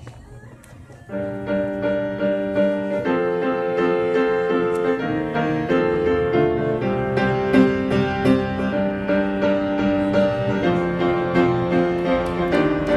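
Background music comes in about a second in: held chords that change every second or two.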